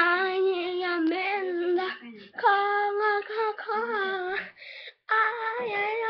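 A child singing, in three phrases of held, wavering notes with short breaks between them.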